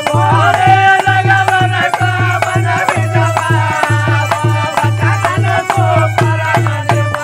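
Folk devotional bhajan music: men singing a drawn-out refrain in chorus over a dholak playing a steady beat of about two strokes a second, with rattling percussion on top.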